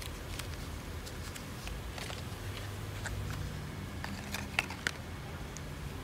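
Faint clicks and light taps of a new spark plug and its cardboard box being handled, with two sharper ticks about four and a half seconds in, over a steady low hum.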